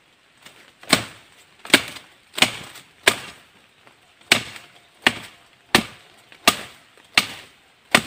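Blade of a multifunction shovel chopping through a bird cherry branch: about ten sharp blows, one roughly every three-quarters of a second.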